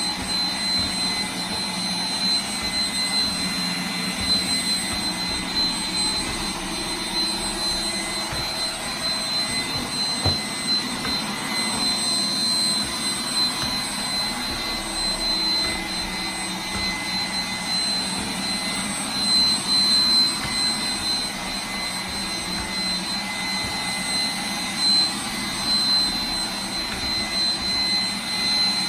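iRobot Roomba 980 robot vacuum running in spot-clean mode: a steady whir from its vacuum motor with a thin, constant high whine on top.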